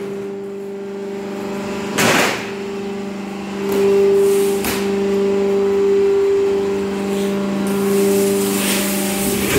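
Bending press machine running with a steady electric-motor hum, swelling for about a second near the middle, with two short bursts of noise about two and a half seconds apart.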